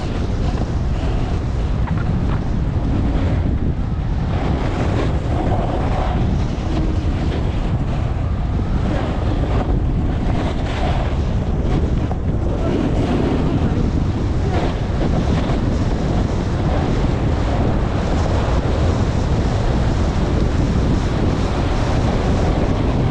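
Wind rushing and buffeting over a GoPro action camera's microphone at skiing speed, with skis scraping over packed, groomed snow.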